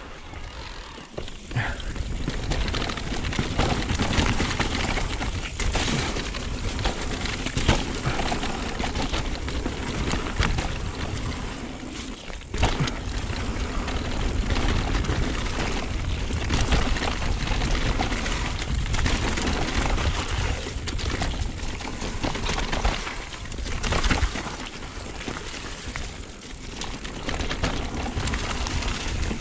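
Mountain bike descending a dirt singletrack at speed: a steady rush of knobby tyres on soil and leaves and air past the microphone, broken by frequent knocks and rattles of the bike over bumps and roots. It starts quieter and builds about a second or two in as the bike gets rolling.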